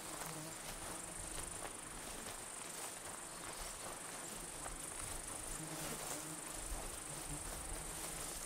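A steady, high-pitched drone of insects calling, with light swishing and scattered ticks of footsteps through tall grass.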